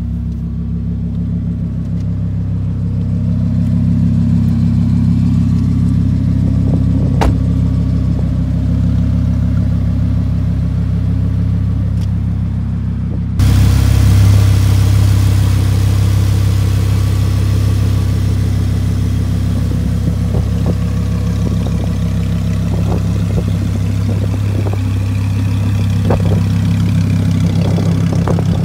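Audi R8's 5.2-litre V10 idling steadily. About halfway through the sound jumps louder and brighter, heard beside the engine cover rather than from inside the cabin.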